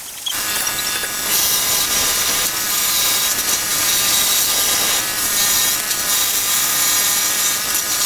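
Power tool running steadily on wood: a continuous machine whine over a rough, hissy cutting noise that starts just after the beginning.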